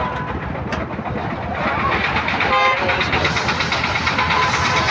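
Steady din of vehicle traffic and engines, with a short horn toot about two and a half seconds in.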